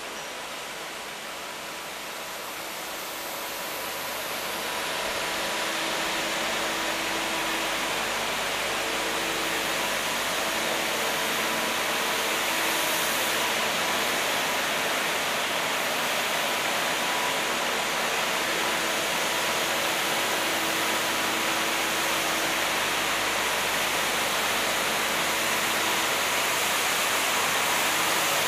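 Steady rushing city ambience that grows louder about four seconds in and then holds, with faint hums coming and going underneath.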